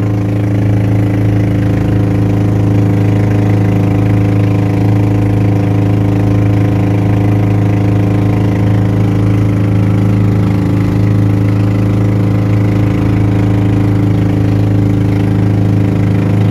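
Engine of a motorized outrigger fishing boat running steadily under way, holding one even pitch.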